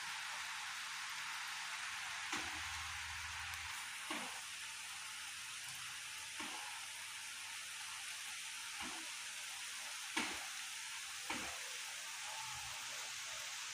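Steady hiss of falling rain, with about six louder single drops striking close by, the loudest about ten seconds in.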